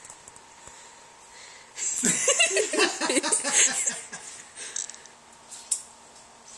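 A person's non-speech vocal sounds for about two seconds, starting about two seconds in, with a sharp click near the end.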